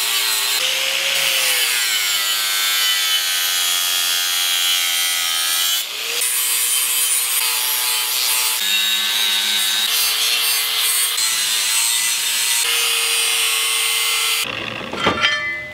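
Handheld angle grinder grinding the steel head of an axe forged from a pick axe, putting an edge on it and evening up the tines: a harsh rasp with the motor's whine, which drops in pitch as the disc is pressed into the steel about a second in. The sound changes abruptly about six seconds in and stops near the end.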